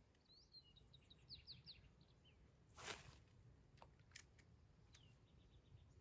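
Faint songbird chirping: a quick run of short chirps in the first two seconds and another short run near the end. About three seconds in comes a brief rushing noise, followed by a few faint clicks.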